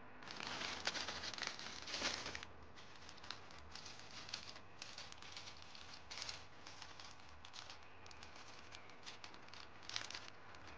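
Clear plastic Lego parts bags crinkling and crackling as they are handled. The sound is loudest for the first two seconds or so, then comes in short, scattered crackles, with another brief burst near the end.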